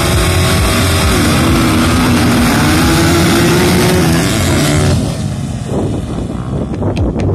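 Motocross bike engines running loud at high revs, the engine note shifting up and down in pitch. The loud engine noise drops off suddenly about five seconds in, and scattered clicks follow near the end.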